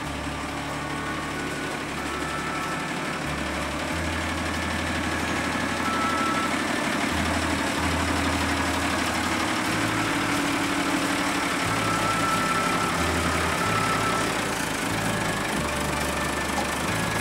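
A 1963 Morris FFK-140 truck's engine idling steadily.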